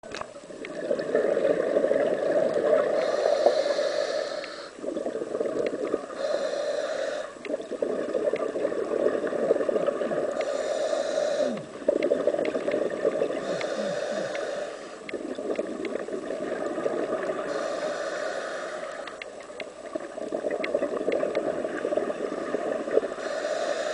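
Scuba diver's regulator breathing, heard underwater: a hissing inhale alternating with bubbling exhales, one breath every few seconds.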